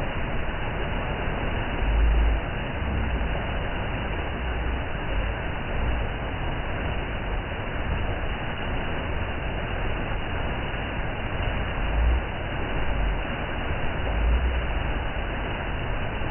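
Waterfall rushing as a steady, even roar of falling water, with a few brief low rumbles (about two seconds in and twice near the end).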